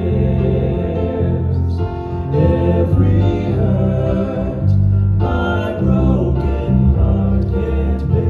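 Southern gospel music: a male vocal quartet singing in close harmony over instrumental accompaniment with a strong bass line.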